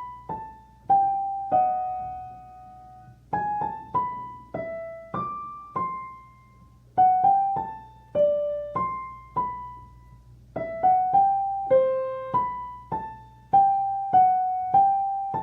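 Piano playing a simple single-note melody in its upper register, an octave above the written part. The notes are struck one at a time and die away, in short phrases separated by pauses of about a second.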